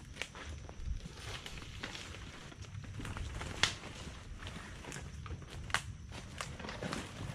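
Footsteps crunching over the ground, with irregular sharp cracks and snaps. The two loudest come about three and a half and nearly six seconds in.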